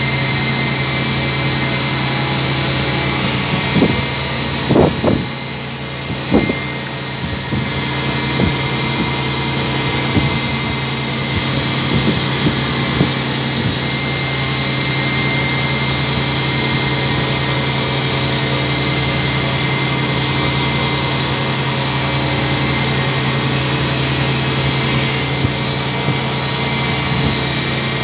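CNC milling machine running: a steady spindle whine with several fixed high tones as a small end mill cuts a metal block held in a vise. A few short, sharp chirps stand out over it in the first half.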